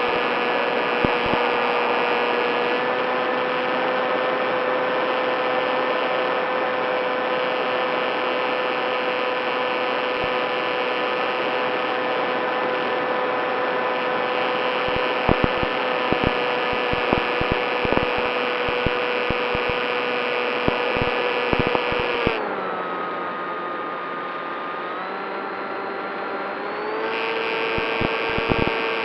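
Electric motor and propeller of a Skywalker FPV model plane running at a steady cruise whine, with short crackles over it. About 22 seconds in the throttle is pulled back and the pitch drops, then it rises again a few seconds later as power comes back on.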